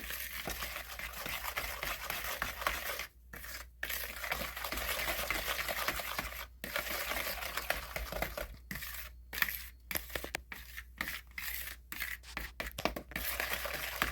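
Wooden spoon stirring and scraping a thick mix of creamed butter, brown sugar and molasses in a bowl: a continuous rough scraping noise with several brief breaks.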